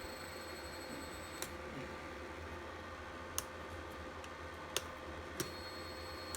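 Steady electrical hum with a faint steady whine, crossed by four sharp clicks, the first about a second and a half in and the rest in the second half.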